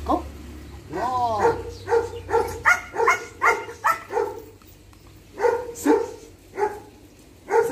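A dog barking repeatedly: a drawn-out rising-and-falling cry about a second in, then a quick run of barks, a short pause, and a second run.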